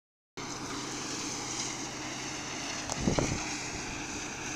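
Farm machinery engine running steadily, with wind noise on the microphone; a brief low thump about three seconds in.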